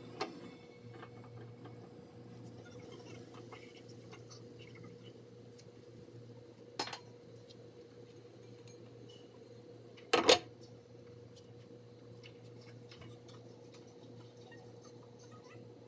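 Kitchen utensils and dishes being handled: a few sharp clinks and knocks, the loudest a quick double knock about ten seconds in, over a steady low hum.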